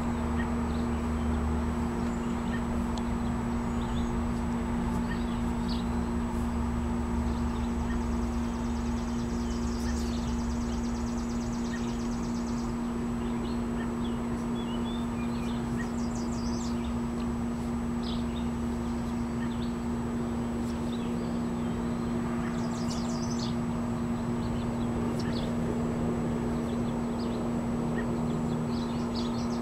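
Steady outdoor hum with a low rumble underneath, and birds chirping now and then, with a quick rapid trill about nine to twelve seconds in.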